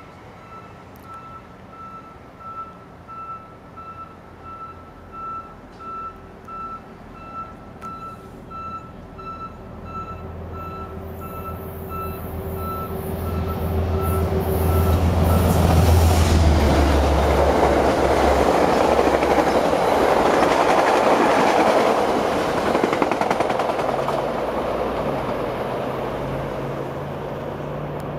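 A passenger train led by a locomotive approaches and runs through the station: a low rumble builds, then comes a loud, even rush of wheels on rail for several seconds that slowly fades near the end. Over the first dozen seconds a high electronic beep repeats a little faster than once a second, like a vehicle's reversing alarm.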